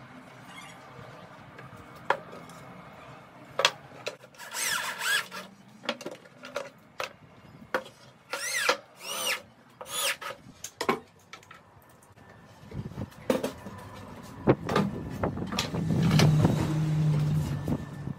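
Handheld electric drill boring into a hardwood board in short bursts, its whine rising and falling as the trigger is squeezed and let off, among knocks and clicks of wood and tools being handled. In the last few seconds a louder continuous rubbing noise with a low hum.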